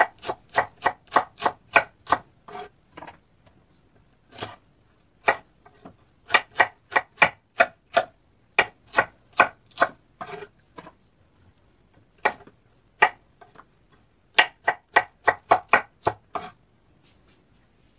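Cleaver chopping okra into thin discs on a wooden cutting board: quick runs of sharp knocks, about four a second, broken by pauses of a second or two.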